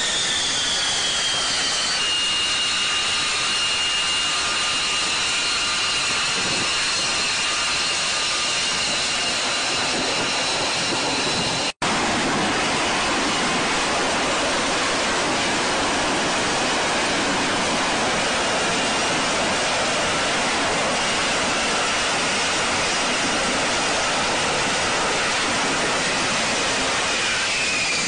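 Loud, steady jet engine noise with a high whine that falls in pitch over the first two seconds, holds level, and falls again near the end. The sound cuts out for an instant about twelve seconds in.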